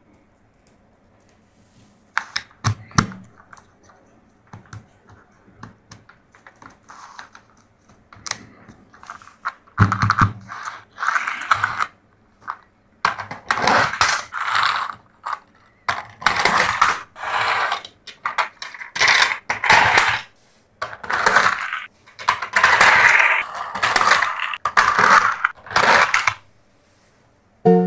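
Toys and their packaging being handled: scattered small clicks and taps, then from about ten seconds in a run of rustling bursts about a second each, as plastic or packaging is worked.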